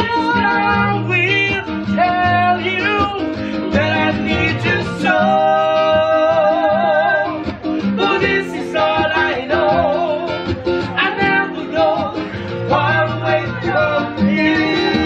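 Two men singing live to an acoustic guitar accompaniment, with a long held note with vibrato from about five seconds in.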